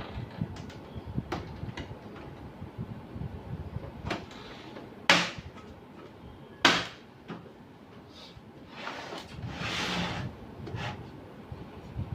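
Plastic printer casing parts being handled and fitted together: scattered light clicks and knocks, two sharp knocks about five seconds in and a second and a half later, and a longer sliding scrape about nine seconds in.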